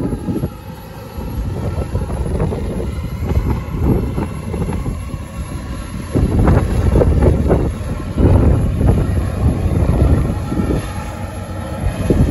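New Holland W170D wheel loader's diesel engine working under load as it climbs and packs a silage pile, growing louder about six seconds in. Gusts of wind buffet the microphone.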